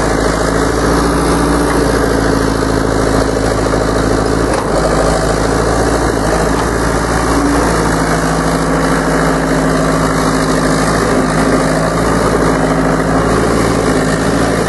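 Diesel engine of a 1974 Hy-Mac 570 hydraulic excavator running steadily as the digger arm and bucket work the spoil heap.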